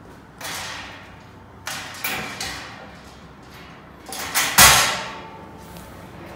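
Metal pegboard back panels of a gondola shelving unit sliding down into the slotted uprights, scraping and rattling in several short bouts, with the loudest clunk about four and a half seconds in as a panel drops into place.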